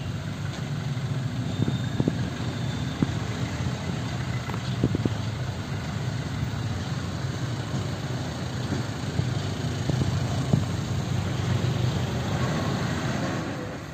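Road traffic, motorcycles and trucks running as they cross the railway tracks, with a few short knocks.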